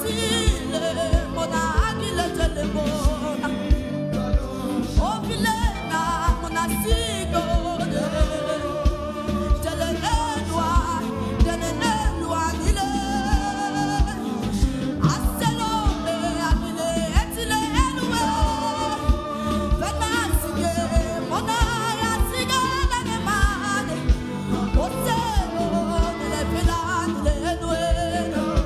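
Gospel worship song: a solo voice singing long, gliding melodic lines without clear words over backing music with a steady beat.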